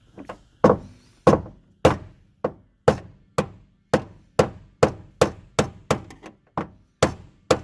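Repeated hammer taps, about two a second and quickening slightly, knocking the fuel pump canister's locking ring counterclockwise to break it loose.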